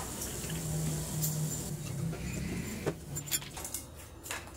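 Fizzy soft drink poured from a plastic bottle into a glass, with glugging and fizzing, then a few light clicks and knocks of tableware and a metal pizza pan being handled.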